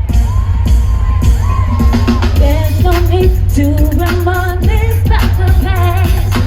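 Live R&B song played loud through a PA: a woman singing a melody with vibrato over heavy bass and drums. The singing comes in about two seconds in.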